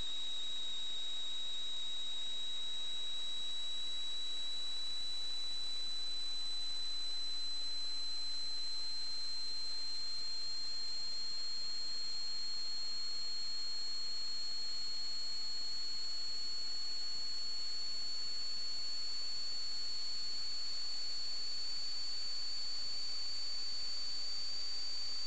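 A steady high-pitched electronic whine over an even hiss, its pitch creeping slowly upward.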